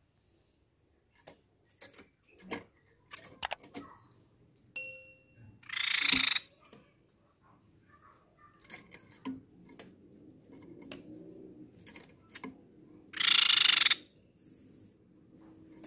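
Tepus pipi perak (crescent-chested babbler) giving two loud rapid trilling calls, one about six seconds in and a longer one near the end. Scattered light clicks and taps come in between.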